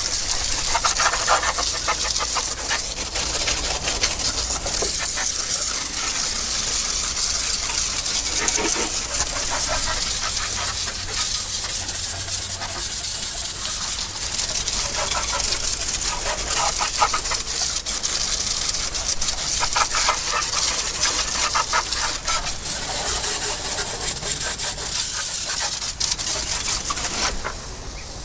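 Water spraying in a steady hissing jet, washing down the boat and outboard. It cuts off near the end.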